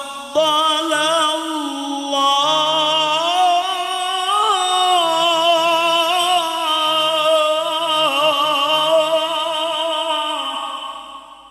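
A man reciting the Qur'an in the melodic mujawwad style, holding one long ornamented phrase with wavering, gliding pitch. The line rises about halfway through, then sinks and fades away near the end.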